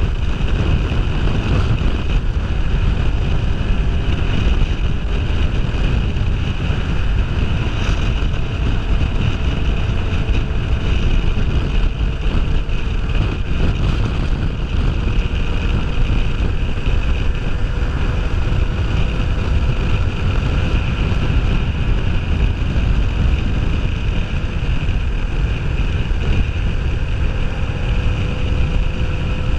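Steady wind rush buffeting the microphone at riding speed, with a Kawasaki Ninja 500R's parallel-twin engine running underneath as a faint tone that slowly rises near the end.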